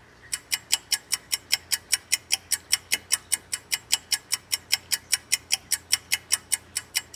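Rapid, even ticking, about five ticks a second, starting suddenly just after the opening: a clock-ticking sound effect.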